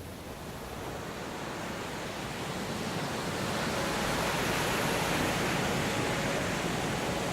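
Waves washing onto a beach: an even rush of noise that slowly swells over the first five seconds, then holds steady.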